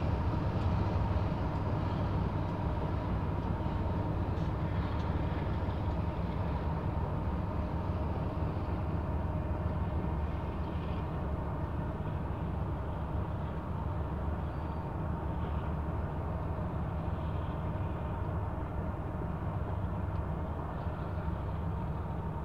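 BNSF intermodal freight train rolling across a long railway bridge over a lake: a steady low rumble, with a faint ringing note over it, slowly fading as the train moves away.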